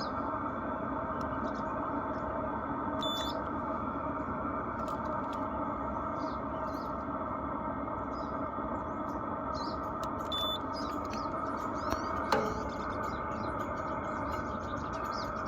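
Diesel air heater's exhaust outlet running steadily through its muffler, giving an even, unchanging rush of noise. Faint bird chirps sound now and then.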